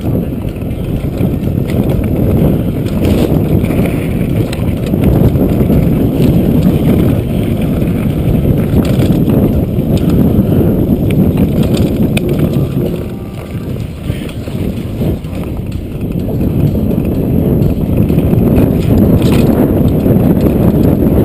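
Wind rumble on the camera microphone mixed with the rattle and tyre noise of a downhill mountain bike rolling fast over a dirt trail, with scattered clicks and clatters from bumps. It eases briefly about two-thirds of the way through.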